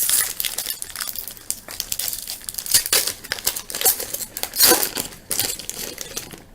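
Wrapper of a trading-card pack being torn open and crinkled by hand, an irregular papery crackle throughout.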